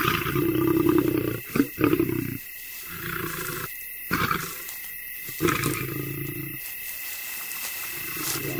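A lioness growling and snarling in several low, rumbling bouts broken by short gaps, with two sharp loud sounds about a second and a half in.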